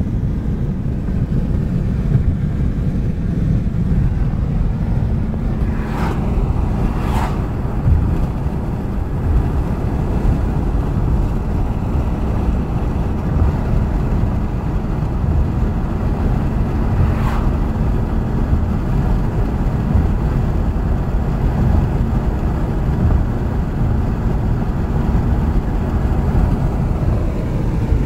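A car driving at highway speed, heard from inside the cabin: a steady low rumble of tyre and wind noise. There are three brief clicks, two close together a few seconds in and one more midway.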